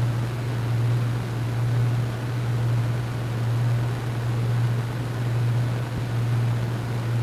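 Steady low hum under a constant hiss, gently swelling and easing about once a second, with no sudden sounds.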